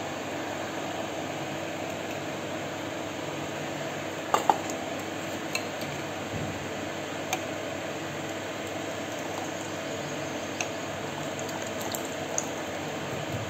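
Steel ladle stirring and scooping liquid in a stainless steel bowl, clinking against the bowl several times, with liquid pouring back near the end. Under it runs the steady whir of an electric fan.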